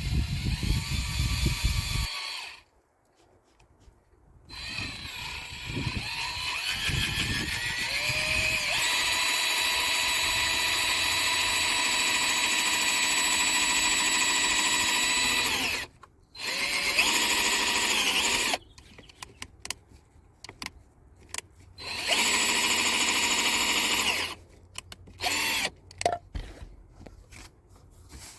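Power drill running in bursts with a steady whine: a short run, then a long run of about eleven seconds that speeds up a few seconds in, two more shorter runs, and then scattered clicks and knocks.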